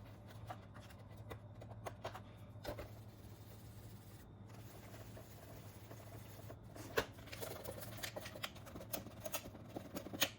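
Alcohol wipe rubbing and scrubbing on a Roomba's metal charging contacts, with scattered small clicks and scratches of handling the plastic parts, over a steady low hum.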